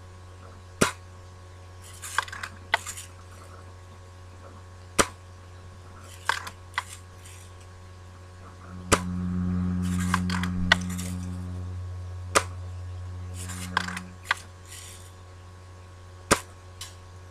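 Daisy lever-action BB rifle firing about four sharp shots a few seconds apart, with the clack of the lever being cycled between shots. A louder low hum swells for a few seconds in the middle.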